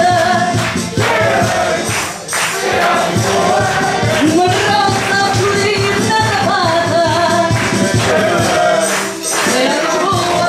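A woman singing a song into a microphone, with a wavering held melody over musical accompaniment that has a steady beat.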